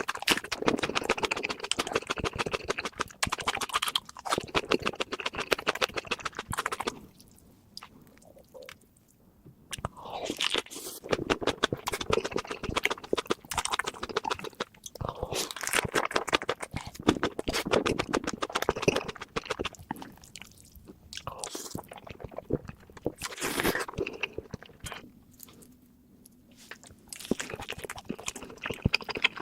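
Close-miked eating sounds: crunchy bites and wet chewing in dense runs, falling quieter twice for a couple of seconds.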